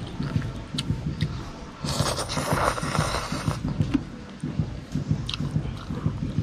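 A person slurping spicy instant noodles in one long slurp lasting about a second and a half, starting about two seconds in, with close-up chewing before and after it.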